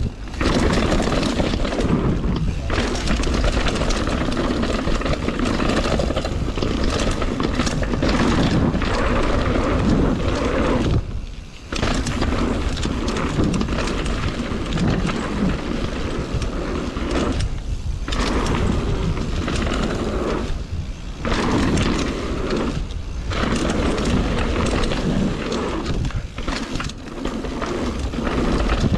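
Mountain bike riding fast down a dirt and rock trail: a steady rush of wind buffeting the camera microphone over the noise of knobby tyres on dirt and rock, with brief lulls a few times.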